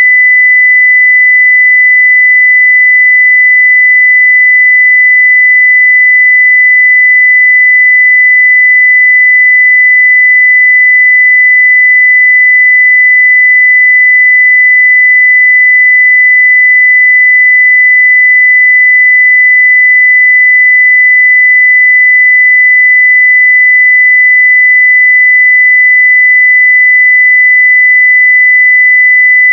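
Continuous 2 kHz sine-wave test tone at full level (0 dB), a single pure pitch held steady without change.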